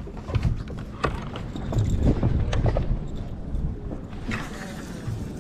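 Low rumble of a fishing boat under way, with wind on the microphone and a few scattered knocks and taps from the rod and bow rail being handled.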